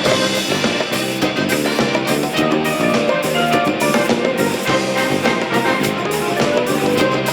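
Band music with drum kit and guitar playing a steady beat.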